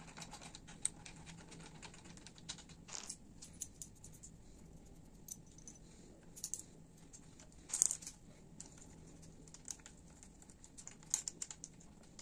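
Faint, irregular small metallic clicks and taps as hands fit the brake caliper bolts on a motorcycle front fork leg and handle the fork, with a few slightly louder knocks about 3 s and 8 s in.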